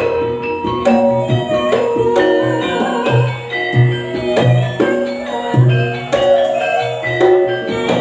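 Campursari ensemble playing an instrumental passage: quick struck notes from metal-keyed gamelan instruments over a low bass note repeating about once a second, with drum strokes.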